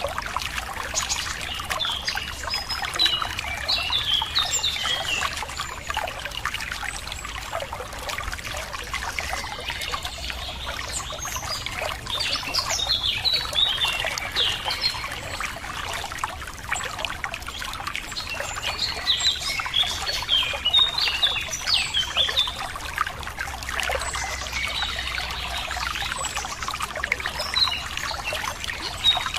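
Running water trickling and splashing steadily, with small birds chirping and singing over it in repeated flurries of quick high notes.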